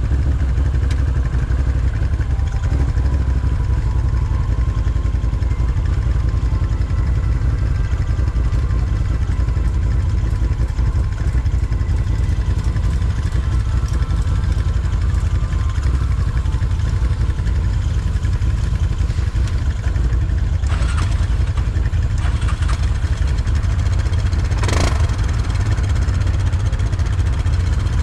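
Can-Am Outlander 1000 ATV's V-twin engine running steadily under way, a heavy low rumble. A short harsh noise comes about 21 seconds in and a louder one about 25 seconds in.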